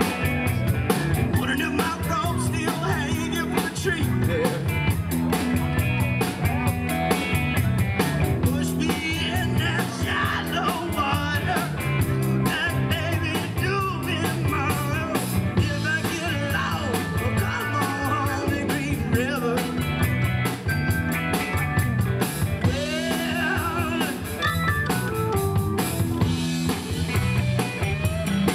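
Live rock band playing: electric guitars and bass through stage amplifiers over a Ludwig drum kit keeping a steady cymbal beat.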